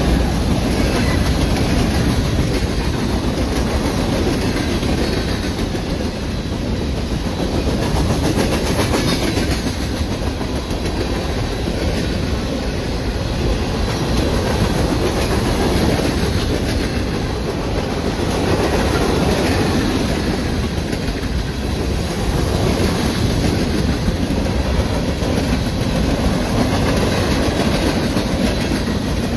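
Freight train of loaded hopper cars rolling past close by: a steady rumble of steel wheels on rail with clickety-clack over the rail joints.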